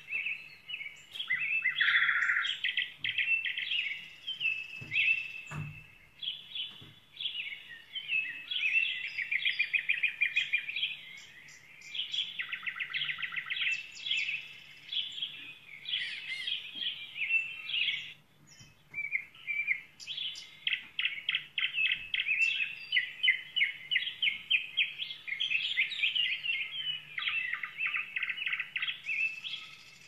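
Songbirds chirping and singing continuously, with many quick trills and a brief lull about two-thirds of the way through. A faint steady low hum runs underneath.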